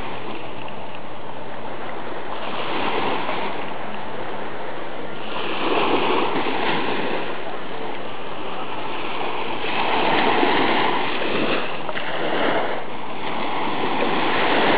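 Surf washing onto a sandy beach: a steady wash of noise that swells every few seconds as waves come in.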